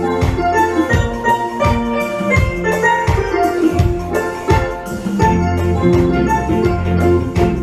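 Music: a melody on steel drums or mallet percussion over a steady drum beat, about two beats a second, with no singing.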